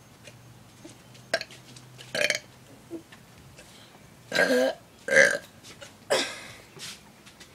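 A man burping loudly four times in quick succession, short separate belches with the loudest about five seconds in.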